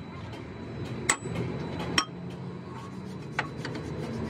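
Hammer striking steel on a truck chassis frame rail: two sharp, ringing metallic clinks about a second apart, then a fainter one, over steady low background noise.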